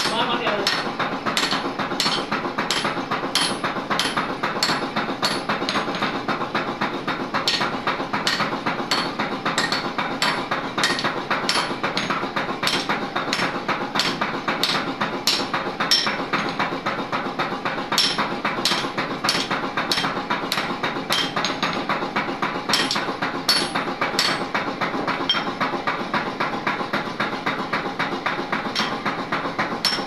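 Hand hammer striking a red-hot steel chisel blank on an anvil block, about two blows a second, each with a short metallic ring, with the blows thinning out for a few seconds near the end. A steady workshop noise runs underneath.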